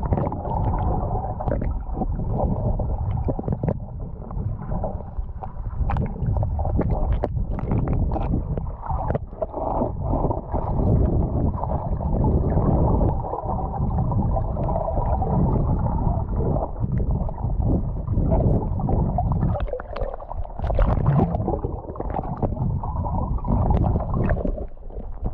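Muffled underwater rush and gurgle of a flowing stream, heard through a submerged camera, with scattered small clicks and knocks.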